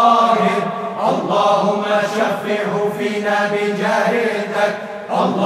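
Melodic Islamic zikr chanting: a voice holding and bending long notes over a steady low drone.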